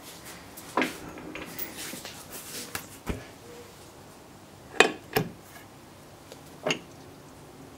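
A few separate metallic clinks and knocks from metal parts or tools being handled, the two loudest close together about five seconds in. No motor is running.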